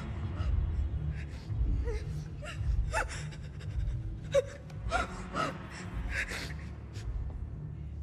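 A woman gasping and whimpering in short, sharp breaths over a low, pulsing club-music bass. The sharpest gasp comes about halfway through.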